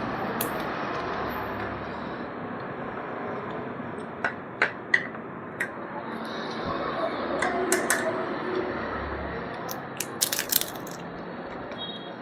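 Eating at a meal: scattered sharp clicks and small crackles of food and tableware, bunched around the middle and near the end, over a steady background hum.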